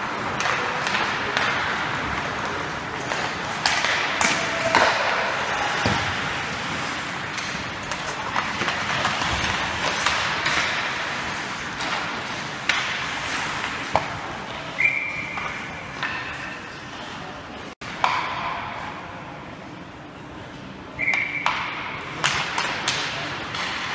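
Ice hockey practice in an echoing rink: skates scraping the ice and sharp clacks of pucks off sticks and boards. Two short high tones sound about six seconds apart in the second half.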